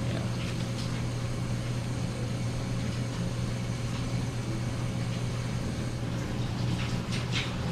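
Steady low machine hum, with a few faint clicks and plastic handling sounds near the end.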